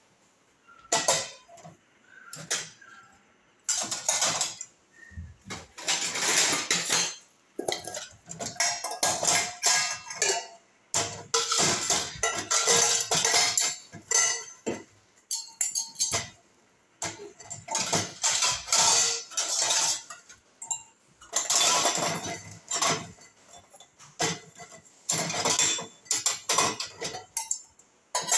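Stainless-steel plates and tumblers clinking and clattering against each other and the wire rack as they are taken out of a dishwasher, in irregular runs of clatter with short pauses between.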